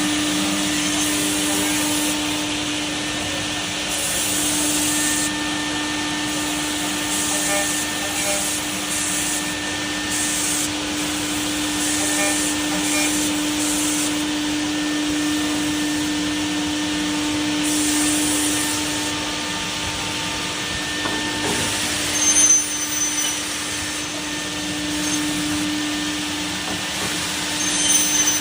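CNC machining center working an aluminium window profile: the spindle runs steadily with a hum and a hissing whir that swells and fades, with two brief louder cutting spots and a high whine near the end.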